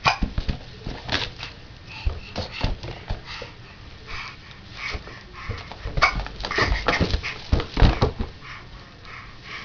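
Irregular short squeaks, breaths and knocks from a baby playing with rubber balloons.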